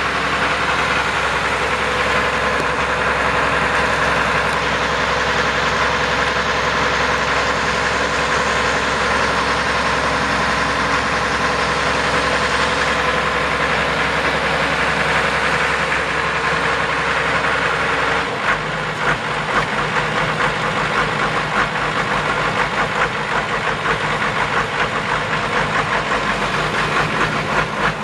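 1965 Allis-Chalmers 190XT's six-cylinder turbo diesel engine idling steadily. About two-thirds of the way in its sound turns uneven and pulsing.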